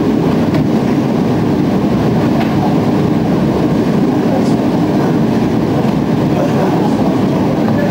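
Steady low rumble of a car ferry under way, its engines and the rush of air along the deck passage.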